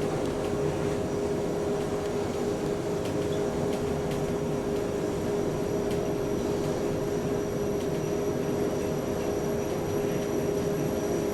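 Passenger lift car travelling between floors: a steady running hum from the drive and cab, with a constant whining tone over it.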